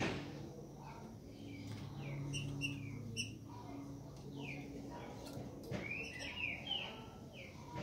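Green-winged saltator (trinca-ferro) giving scattered short, falling chirps, coming thicker near the end. A faint low hum runs under the first half.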